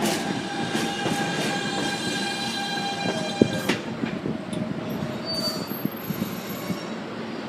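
New York City subway train slowing into a station, its wheels and brakes squealing in several high steady tones over the rumble of the cars. The squeal cuts off about three and a half seconds in, a lower tone lingers a little longer, and faint wheel clicks continue as the train comes to a stop.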